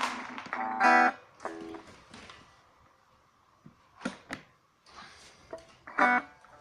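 Guitar strumming a few separate chords with short pauses between them, quietest in the middle.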